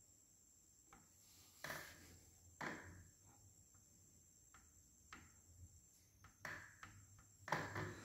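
Near silence broken by a few faint clicks and taps of a metal socket and wrench being handled on the gear shafts of an opened motorcycle engine, with two soft rustles early on.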